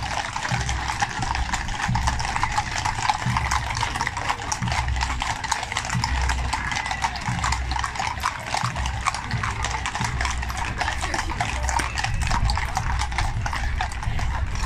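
Many horses' hooves clip-clopping on a tarmac road as a column of ridden horses walks past at close range, a dense, irregular clatter of overlapping hoof strikes.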